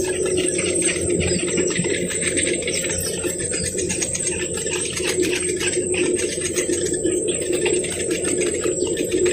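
Birds calling over a steady low hum, with a dense run of faint clicks throughout.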